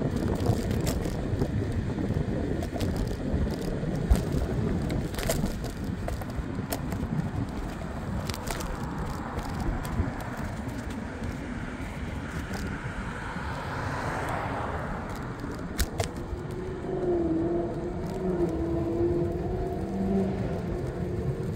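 Wind buffeting the microphone and road rumble from a scooter moving at speed, with scattered clicks and knocks. A wavering hum joins in near the end.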